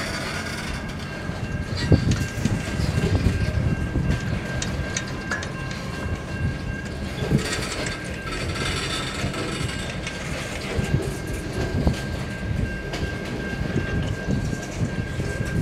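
Freight train wagons rolling past: a steady low rumble with irregular clattering knocks of wheels over the rail joints, and a thin steady high whine over the top.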